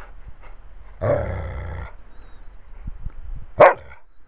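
Bernese mountain dog vocalizing: one drawn-out call about a second in, then one short sharp bark near the end, which is the loudest sound.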